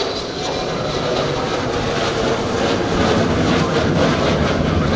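Boeing 727's three JT8D turbofan jet engines during a low pass, a steady engine noise growing louder over the first few seconds and then holding.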